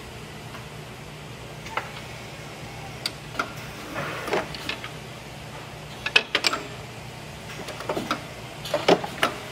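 Semi-automated assembly fixture working: its tooling head closes down onto the part and its clamps engage, giving a series of sharp clicks and clunks over a steady machine hum.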